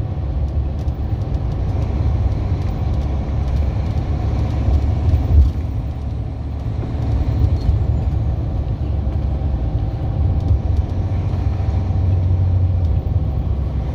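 Steady low road and engine rumble heard from inside a moving vehicle in traffic, with a brief louder bump about five seconds in.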